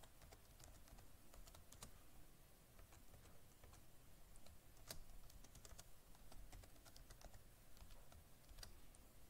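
Faint computer keyboard typing: scattered keystroke clicks.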